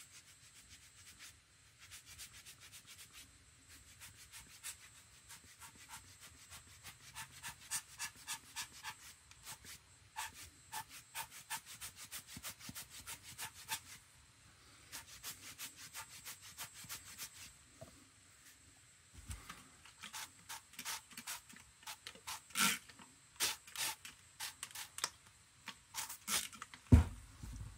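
A hand rubbing and scraping at a textured painting surface, giving a quick run of small scratchy strokes with short pauses. Near the end come a few sharp squirts from a trigger spray bottle and one deep thump.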